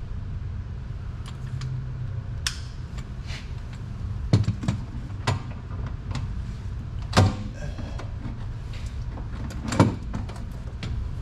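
Metal clicks and knocks as a socket stuck on a swivel adapter is worked and knocked to free it, with three louder clanks among lighter clicks over a steady low hum.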